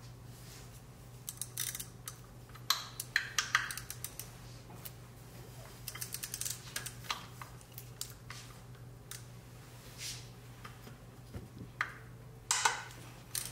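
Hand socket ratchet clicking in several short bursts of rapid clicks as it is swung back and forth on a long extension, loosening engine mount bolts, with light metal clinks of the socket.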